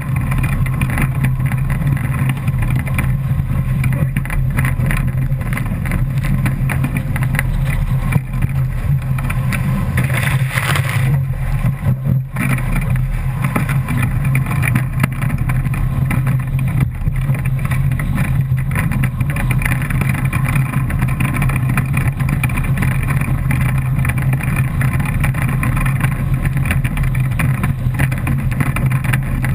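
Steady rush of wind and water on a GoPro camera mounted on an A-Class catamaran sailing fast, with water spray hitting the camera and a deep rumble. The hiss grows louder for a moment about ten seconds in.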